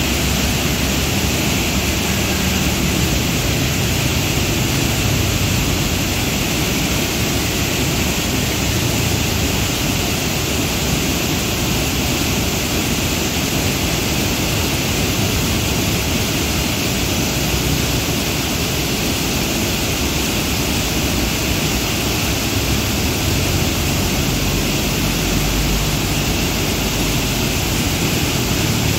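Swollen, muddy river in flood churning through rapids: a loud, steady rush of turbulent water.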